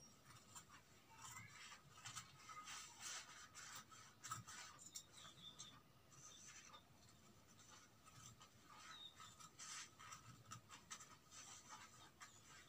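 Scissors cutting through stiff buckram: faint, irregular crisp snips with the scrape and rustle of the stiff cloth as it is cut along a curve.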